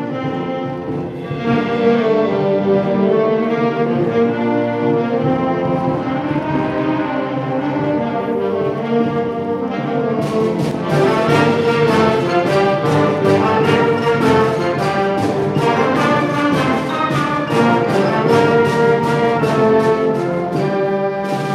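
Junior high school symphonic band, with clarinets and brass, playing a concert band piece in sustained chords. About ten seconds in, percussion joins with quick repeated strikes.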